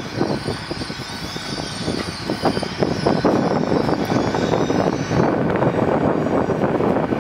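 A long passenger train running past at speed: a steady rumble of wheels on rail, with a rapid, uneven clatter of wheels over rail joints and pointwork.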